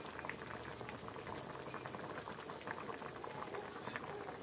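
Wok of cassava-leaf soup boiling steadily, bubbles popping in a continuous crackle.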